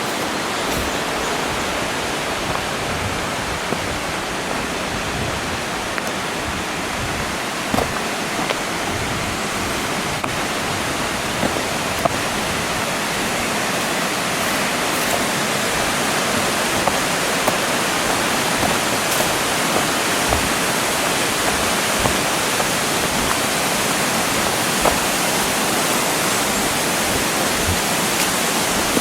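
Waterfall pouring with a steady rush of water that grows slightly louder in the second half, with a few faint knocks.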